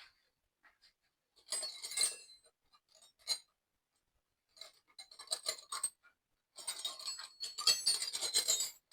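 Metal hand tools and parts clinking and rattling in irregular bursts, the longest and loudest run near the end.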